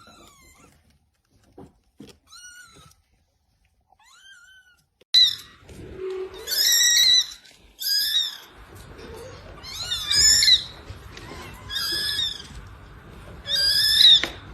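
Cat meowing: a few faint mews, then from about five seconds in a run of louder, high-pitched meows, roughly one every second or two.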